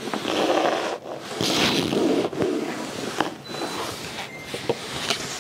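Rustling and scraping in two longer stretches, the first in the opening second and the second starting about a second and a half in, with scattered sharp clicks.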